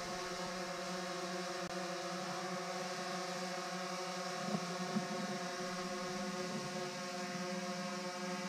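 Small quadcopter drone hovering, its propellers making a steady buzzing hum with several tones stacked together.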